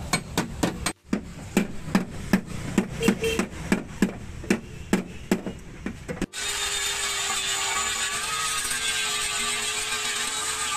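Hammer blows on the rusted sheet-metal sill of a Hyundai i20, about three sharp strikes a second. About six seconds in, they give way abruptly to an angle grinder running steadily against the metal with a steady whine, as the rusted section is ground out for patching.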